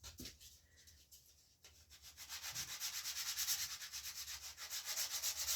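Sandpaper on a flat wooden block rubbed over a bow's rawhide backing, flattening a hump. After a quiet first second and a half, it rasps in fast, even back-and-forth strokes.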